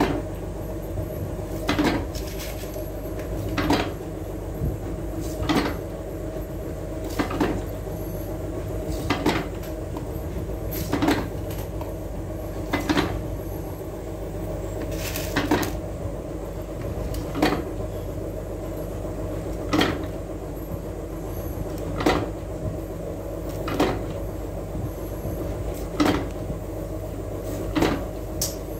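Hand-operated flywheel press bending brass terminal tags: a sharp clack about every two seconds as each stroke of the die comes down, over a steady hum.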